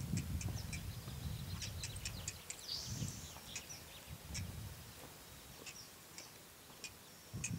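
Small birds chirping and twittering in many short high notes, over a low rumbling noise that is strongest in the first couple of seconds and fades later on.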